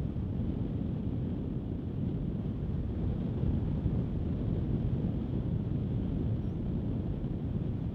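Steady low rushing noise like wind, with no distinct events.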